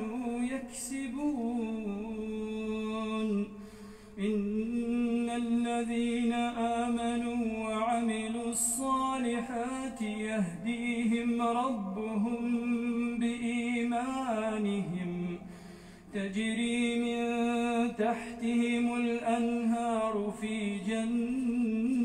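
A man chanting Quran recitation in a slow, melodic style with long held, ornamented notes, breaking off briefly for breath twice.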